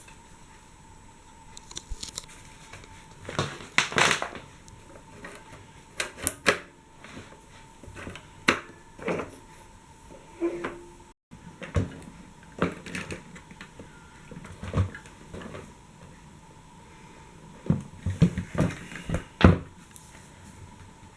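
Irregular clicks, knocks and clatter of hard objects being handled, in loose clusters with short pauses between them; no motor running.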